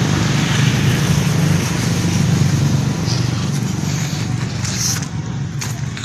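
A motor vehicle engine running steadily, a low drone that eases off a little in the last second or so.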